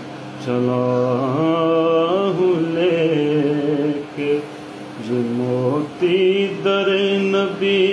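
A man singing an Urdu devotional poem slowly, drawing out long held notes that glide and waver, with a short pause for breath about four seconds in.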